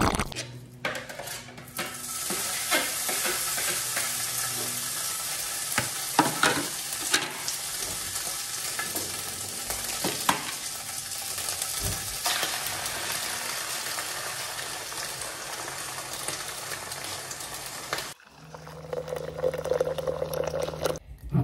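Egg and ham frying in a pan: a steady sizzle with a few knocks of the utensil against the pan. The sizzle cuts off suddenly near the end, and a low steady hum follows for a few seconds.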